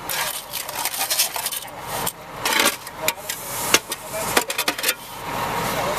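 Irregular metal clinks, knocks and scraping as steel rebar is worked into a drilled pier shaft. A steadier mechanical noise rises near the end.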